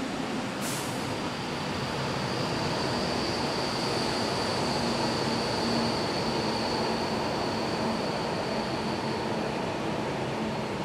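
Freight train of empty JRA box wagons rolling past, a steady rumble and rattle of wheels on the rails. A steady high whine sets in about a second in and holds as the last wagons go by.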